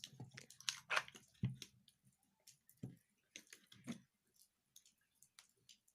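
Light, irregular clicks and taps as the parts of an opened electric drill are handled and fitted back together, with the armature going into the housing.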